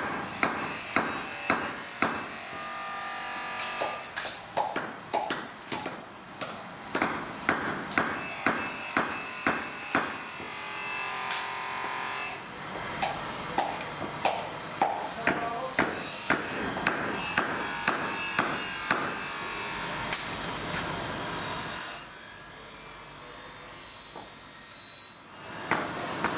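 Hammer blows on steel knife blanks during forging: a long run of sharp metallic strikes, about two to three a second, many of them ringing, over a steady workshop noise. The blows thin out near the end.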